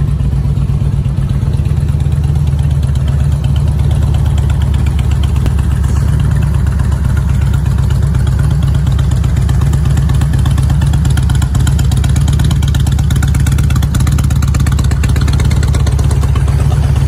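Harley-Davidson Road Glide's Twin Cam 88 V-twin engine idling steadily, with a deep, even low-pitched rumble.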